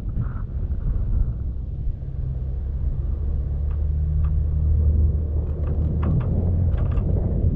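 Vehicle driving up a dirt road: a steady low engine and road rumble that grows a little louder midway, with a few light ticks.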